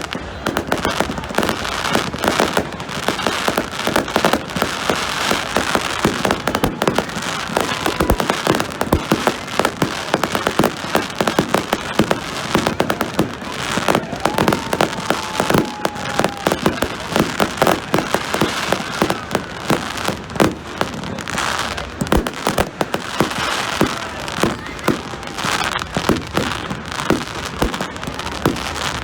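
Fireworks display: a dense, continuous run of bangs and crackling. A faint whistling tone comes in about halfway through.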